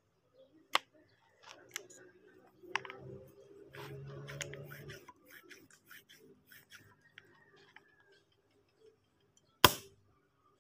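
Small clicks and scrapes as a homemade PVC air gun is handled and worked, then near the end a single sharp, loud pop as the gun's soft trigger releases its air.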